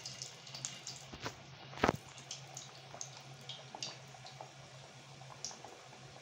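Puff pastry patty deep-frying in hot oil in a steel kadai: a soft sizzle with scattered small pops and crackles, and one sharper click about two seconds in. A faint steady low hum runs underneath.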